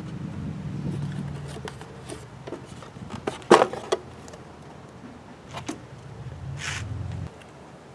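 DeWalt cordless screwdriver motor whirring, fading out about a second and a half in. A loud sharp knock about three and a half seconds in, then the driver runs again briefly near the end and cuts off suddenly.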